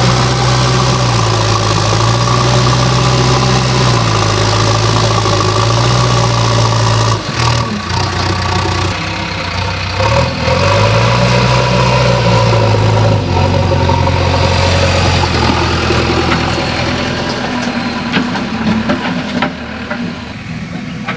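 JCB backhoe loader's diesel engine running, its pitch rising and falling several times with a few knocks about seven seconds in. It then settles to a lower, steadier note about thirteen seconds in and fades near the end.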